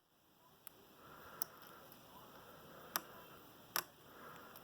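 Faint clicks of a lock pick and tension wrench working the pins of an American Lock 1165 six-pin padlock, with four sharper ticks at uneven intervals.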